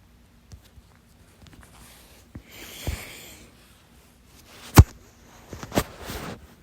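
A person's hiccups, one of a stubborn bout. The loudest is a single sharp hiccup a little under five seconds in, followed about a second later by another. A softer hiccup with breathing noise comes around three seconds in.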